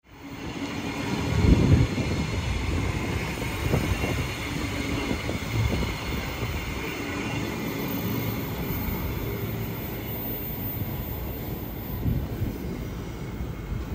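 Queensland Rail electric suburban train running past on the track beside the platform, a steady rumble of wheels on rails that is loudest about a second and a half in and then carries on at an even level as the train pulls away.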